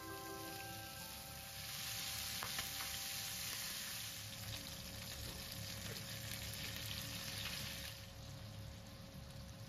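Chicken pieces sizzling as they pan-fry in oil in a nonstick pan, the hiss growing louder about a second and a half in and easing off near the end.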